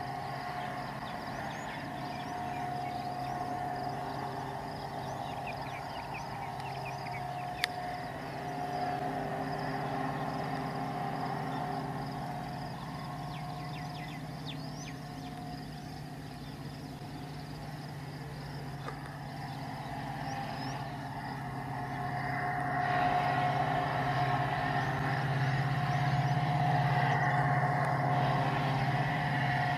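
Diesel locomotive engine running with a steady low drone, growing louder about two-thirds of the way through.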